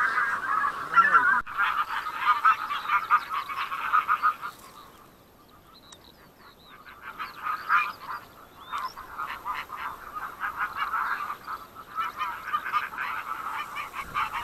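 A flock of geese honking, many short calls overlapping, which the hunter takes for bean geese. The calls fade out about four and a half seconds in and build up again after about seven seconds.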